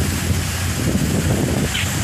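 Wind rumbling on the microphone, with a steady low hum underneath.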